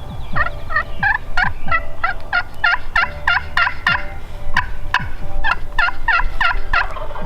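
Turkey calling in a long run of rapid, evenly spaced notes, about three a second.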